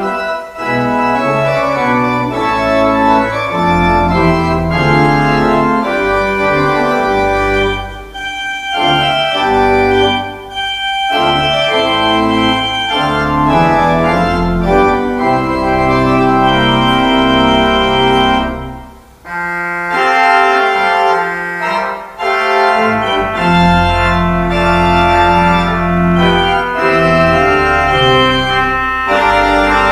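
Church organ playing an offertory: slow sustained chords over a bass line, with short breaths between phrases. The bass drops out for a few seconds past the middle, then returns.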